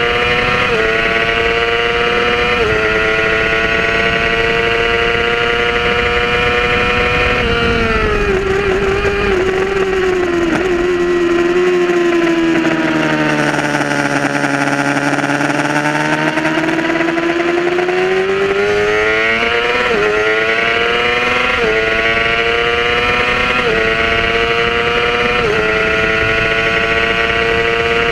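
Onboard sound of a sport bike's inline-four engine at racing revs, its pitch stepping down at two quick upshifts in the first few seconds and then held high. About eight seconds in it falls as the rider brakes and downshifts, runs low through a slow corner, then climbs again under hard acceleration with four upshifts in the last eight seconds, over steady wind rush.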